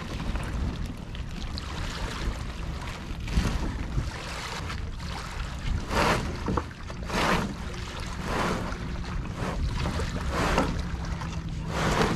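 Wind rumbling steadily on the microphone at the water's edge, over a series of short splashes and knocks as a plastic canoe is pushed off from the shore and paddled.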